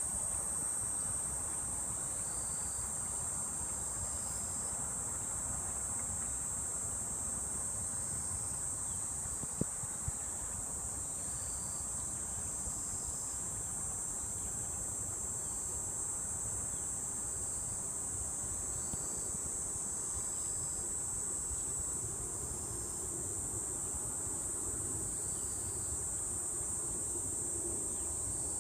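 Steady, high-pitched chorus of singing insects, with faint short chirps repeating every second or two and a low outdoor rumble beneath. A single click about ten seconds in.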